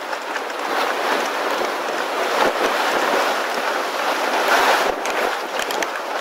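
Strong wind rushing over the microphone, swelling and easing in gusts.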